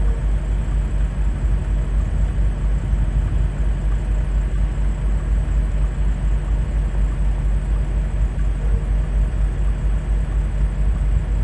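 Steady low rumble of vehicle noise at a snowbound highway pileup, heavy in the bass with a constant hiss over it.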